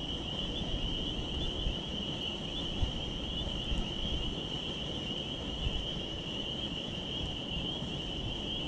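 A steady chorus of crickets, an unbroken high trill, over a low rumble of wind on the microphone.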